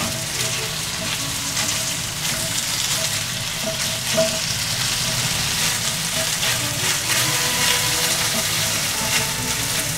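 Sliced pork sizzling and crackling steadily in a frying pan, stirred with cooking chopsticks.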